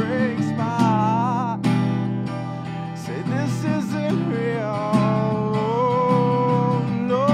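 Acoustic guitar strummed, with a wordless, wavering vocal melody held over it.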